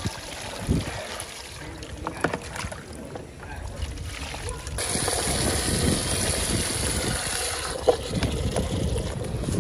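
Water poured from a plastic scoop splashing into a basin of water as raw beef is rinsed by hand, with a steady splash from about five seconds in lasting about three seconds, and quieter sloshing and handling knocks before and after.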